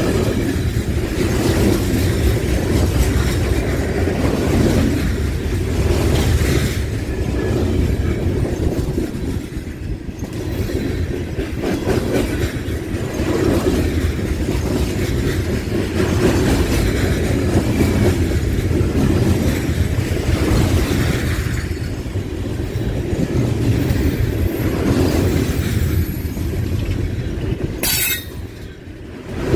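Aluminum coal gondola cars of a CN freight train rolling past at close range: a steady low rumble of steel wheels on the rails with clacks. Near the end the rumble dips briefly and there is a short, sharp high-pitched sound.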